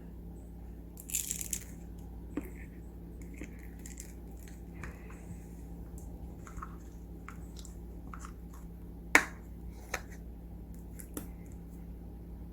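Slime being worked by hand: scattered sticky clicks and small pops, with a crackly burst about a second in and one sharp pop about nine seconds in, over a steady low hum.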